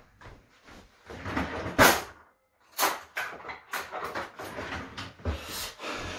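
Kitchen cupboard and drawer being opened and shut while someone fetches a tablespoon, with irregular knocks and clatters. The loudest knock is about two seconds in, and another comes about three seconds in.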